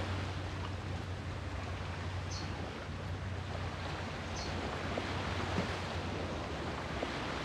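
Sea surf washing on the shore, a steady hiss of water that eases after a wave has broken. Two brief high chirps sound about two and four and a half seconds in.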